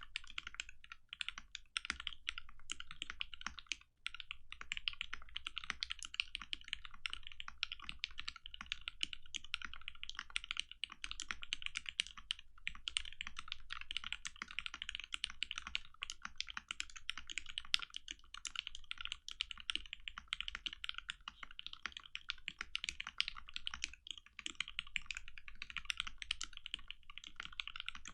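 Continuous fast typing on a custom mechanical keyboard with a polycarbonate case and plate, fitted with linear retooled Cherry MX Black switches lubed with Krytox 205g0 and 62g springs: a dense, uneven stream of key clacks with a brief lull about four seconds in.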